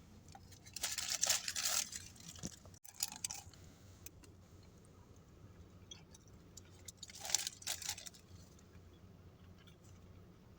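Close-up eating sounds: bites and chewing of a sausage farmer's breakfast wrap, in two short bursts about a second in and again about seven seconds in.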